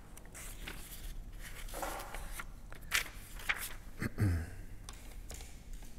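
A quiet pause in a small room: faint rustling and a few soft clicks, with a brief faint murmur or breath about two seconds in and again about four seconds in.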